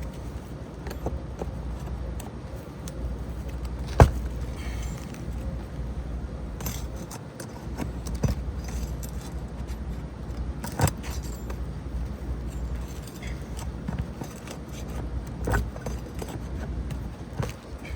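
Hand tools working an asphalt roof shingle loose: scattered sharp metal clicks and knocks, the loudest about four seconds in, over a steady low rumble.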